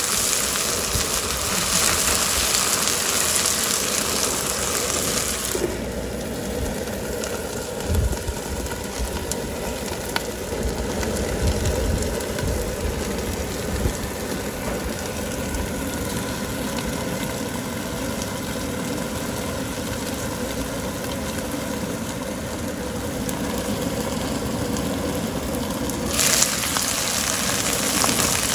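Leafy greens sizzling in a hot nonstick pan on a gas grill. About six seconds in the sizzle turns muffled as a glass lid covers the pan and the greens steam, with a few soft knocks. Near the end the bright sizzle returns as the lid comes off. A low steady rumble runs underneath throughout.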